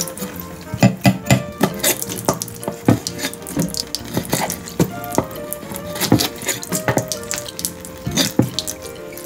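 Kitchen tap running steadily onto a wooden cutting board while a chef's knife cuts and scrapes small gizzard shad, giving irregular sharp knocks of the blade on the wood.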